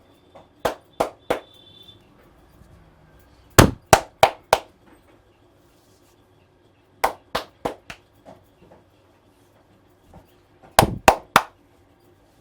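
Percussive hand strikes of an Indian head massage: sharp slaps or claps in quick groups of three or four, about three a second, with pauses of a few seconds between groups.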